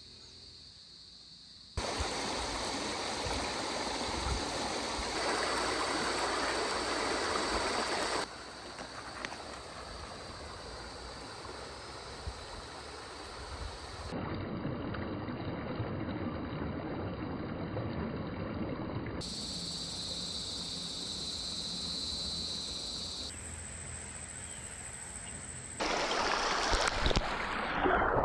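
Riverside stream flowing, a steady rushing of water heard through several short clips joined with abrupt cuts, so its loudness and tone change suddenly every few seconds.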